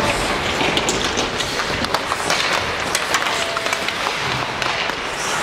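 Ice hockey play: skate blades scraping over the ice and sticks clicking against the puck and each other, scattered sharp clicks over a steady hiss.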